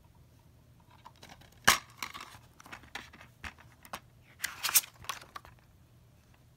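Hard plastic DVD case being handled and opened, with a sharp plastic snap a bit under two seconds in and smaller clicks after it. Near five seconds in, a louder rustle and scrape as the paper insert is slid out of the case.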